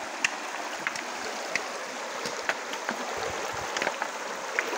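Shallow stream rushing over rocks, a steady flowing-water wash, with a scattering of brief sharp clicks and small splashes.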